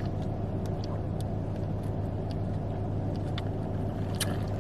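Car engine running, a steady low hum heard from inside the cabin, with a few faint clicks.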